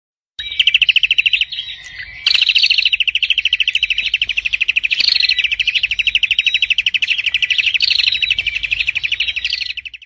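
A small songbird singing a fast, even trill of high chirps. There is a brief dip about a second and a half in, and an occasional higher rising note breaks into the trill.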